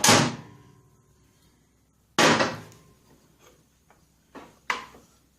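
Three sharp metallic clanks about two seconds apart, the first two ringing briefly: tools and loose parts being handled and set down while stripping a Kohler garden-tractor engine.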